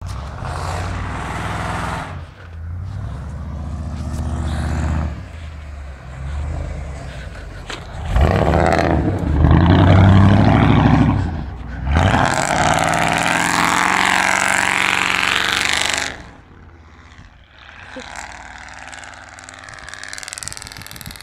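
Straight-piped 6.0 Vortec V8 of a lifted 2000 GMC Sierra 2500 running and revving as the truck drifts through snow. The revs climb hard about eight seconds in, a loud rush follows, and about three-quarters of the way through the sound drops sharply as the truck gets farther away.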